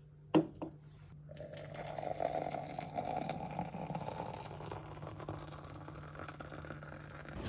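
Water poured from a kettle into a glass French press over coffee grounds: a steady splashing pour that starts about a second in and carries on, a little fainter in the second half. Just before it, a single sharp knock.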